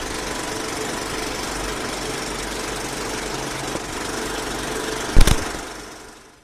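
Sound effect for an animated title card: a steady noisy rumble, with a loud sharp hit about five seconds in, after which it fades out.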